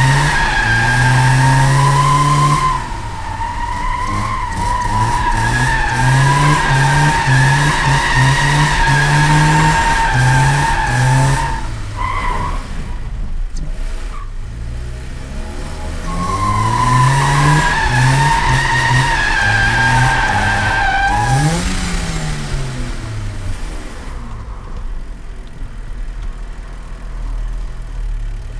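BMW E30's M42 1.8-litre four-cylinder revving up and down while the rear tyres squeal through a drift. A long squeal runs for about the first eleven seconds and a second comes in just past halfway, with the revs climbing and then falling away. Near the end the engine settles to a lower, quieter run.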